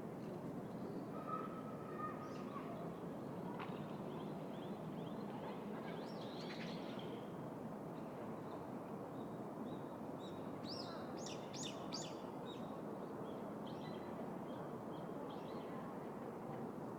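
Small birds chirping over a steady low hum of city background noise, with a quick run of sharp, high chirps about eleven seconds in.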